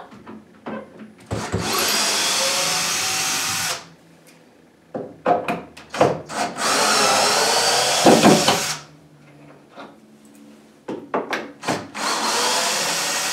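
Cordless drill driving screws out of a wooden kitchen cabinet, running in three bursts of about two seconds each, with short clicks and knocks in between as the bit is set on each screw.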